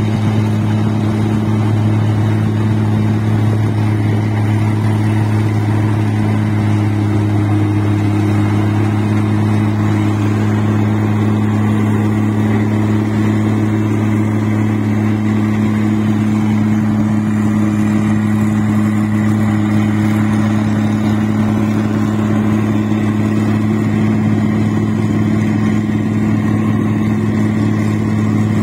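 Rice combine harvester running while it cuts the paddy crop: a steady, even engine drone with a strong low hum.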